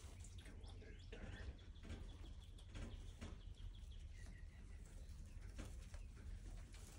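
Faint bird calls, a few short chirps, over a low steady rumble and scattered soft ticks.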